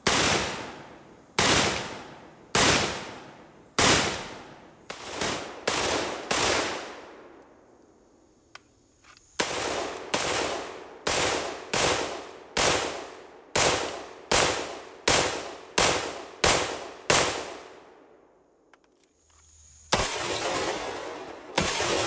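AR-15 rifle with a 14.5-inch 5.56 NATO/.223 barrel firing semi-automatic, each shot sharp with a ringing echo tail. A first string of about eight shots roughly a second apart, then after a pause a faster string of about fifteen shots at about two a second, and one more shot near the end.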